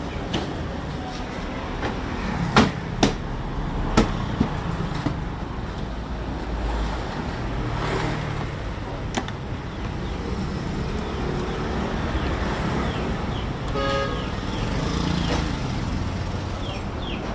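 Road traffic noise with several sharp clicks or knocks, the loudest within the first few seconds and another a little past the middle, and a brief car horn toot about two-thirds of the way through.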